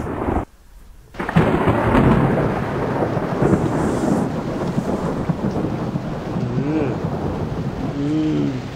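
Thunderstorm: steady rain noise with thunder rumbling. The sound cuts out suddenly for just under a second, starting about half a second in.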